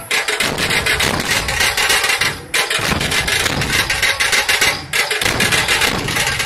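A group of Maharashtrian dhol drums played in unison, beating a fast, loud rhythm. It breaks off briefly twice, about two and a half seconds in and again near five seconds.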